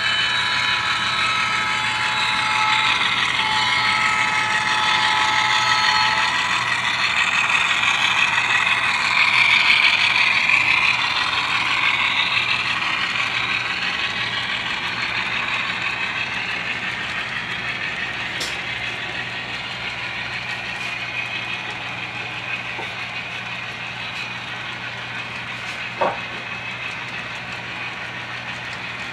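Model freight train running on the layout track, a steady rolling and whirring that grows fainter after about twelve seconds as it moves away. A few steady high tones sound during the first six seconds, and there is a single sharp click near the end.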